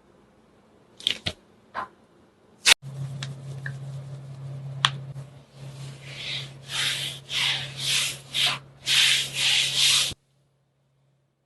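Slime being squeezed and worked by hand: a few sharp sticky clicks and pops, then a run of repeated rubbing squishes that grow louder about six seconds in. A low steady hum runs underneath, and everything cuts off suddenly near the end.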